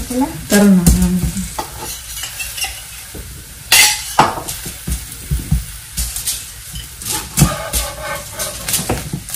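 Metal spatula scraping and tapping on an avocado talipatti in a flat pan, a string of short clicks and scrapes with a louder one about four seconds in, over a faint sizzle of the flatbread frying.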